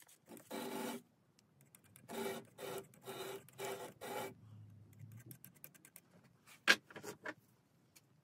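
Short rasping strokes, about six in the first four seconds, as the three-jaw chuck of a Boxford BUD lathe is turned round by hand while blue Loctite is applied to the part. A few sharp clicks follow about seven seconds in, the first the loudest.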